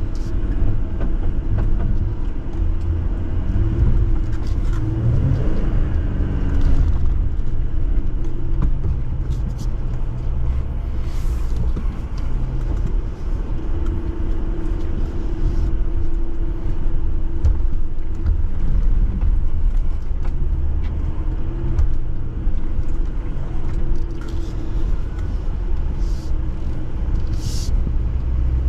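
Jeep engine running steadily while driving off-road, with a deep, continuous low rumble. A couple of brief hissing noises come about eleven seconds in and again near the end.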